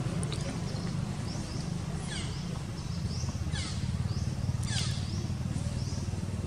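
Animal calls: short high chirps repeating about once or twice a second, with three louder calls sweeping down in pitch near the middle, over a steady low rumble.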